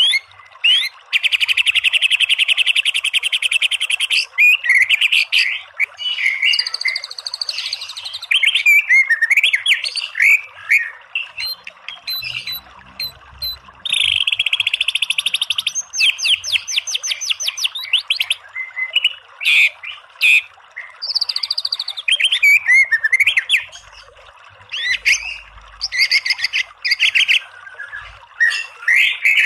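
White-rumped shama (murai batu) singing: varied whistled phrases broken by long, fast buzzing trills, the rapid-fire 'tembakan' bursts, over a steady hiss.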